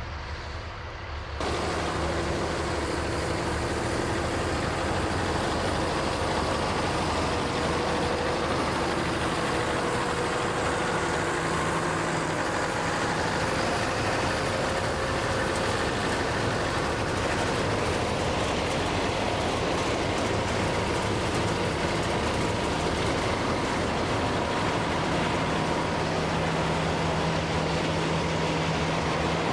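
Farm truck and harvest machinery running steadily in the potato field, a continuous engine drone. It steps up in level about a second and a half in.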